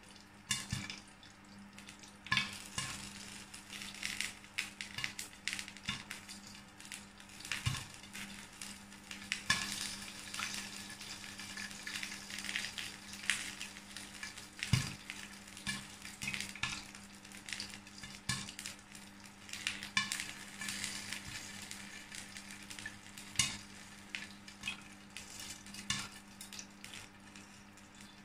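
Popcorn kernels popping in hot oil in a lidded pan: irregular sharp pops, several a second, over a steady sizzle of oil.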